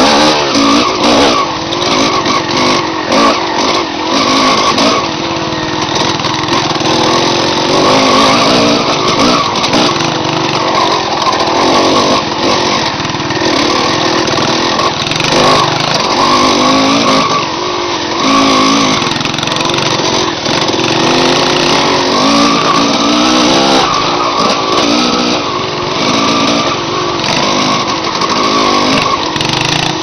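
Dirt bike engines running, the revs climbing and falling again and again every second or two as the bikes are ridden along a trail.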